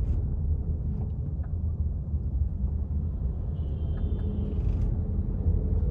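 Steady low engine and road rumble inside a Maruti Suzuki car's cabin, as the car pulls away in second gear.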